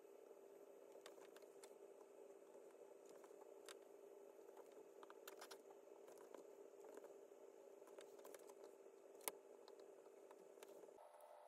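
Near silence: a faint steady hum with scattered light clicks, one sharper click about nine seconds in.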